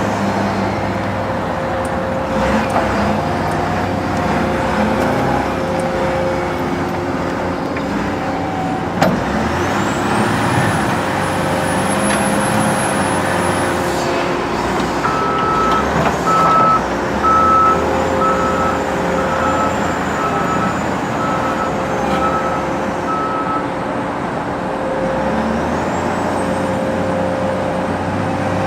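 Cat 924G wheel loader's diesel engine running and working, its pitch shifting with load. Midway its backup alarm beeps about once a second for several seconds, and a single sharp knock comes about nine seconds in.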